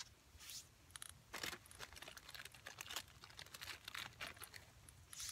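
Plastic food packaging crinkling in short, irregular rustles as a snack packet and a zip-top bag are handled, faint.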